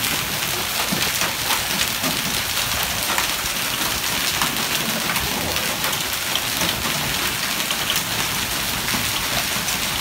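Marble-sized hail with rain pelting a concrete driveway and lawn: a dense, steady patter of many small hits.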